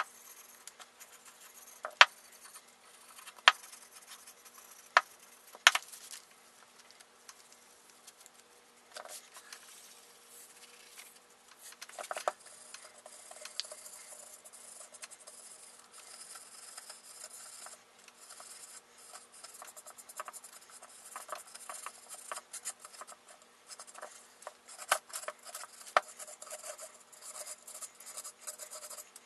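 Cloth rubbing a light coat of hardwax oil onto bare hardwood by hand: a faint, irregular rubbing and scratching. In the first six seconds, several sharp knocks about a second and a half apart stand out as the loudest sounds.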